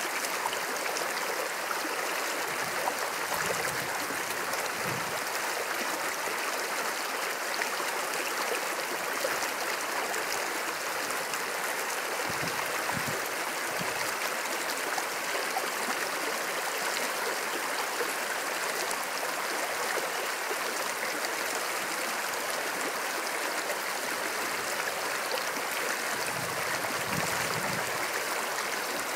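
A small creek running over rocks through a shallow riffle: a steady rushing of water.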